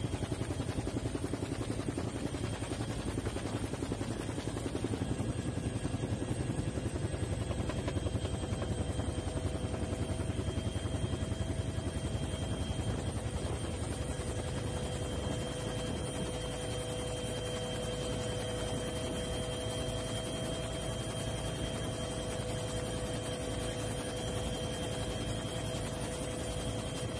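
Helicopter rotor and engine noise, steady throughout, with a fast, even beat and a few constant whining tones.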